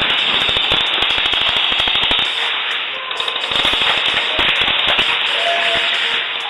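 Airsoft guns firing in rapid strings of sharp cracks: a long burst, a brief lull with scattered shots about two seconds in, then another long burst.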